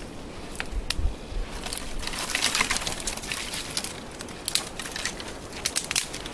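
Bundle of dry twigs handled by hand, rustling and crackling with a few sharp snaps; a denser rustle comes about two to three seconds in.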